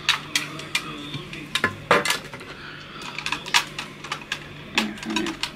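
Irregular clicks and clatters of small hard objects being rummaged through on a desk in a search for a pen.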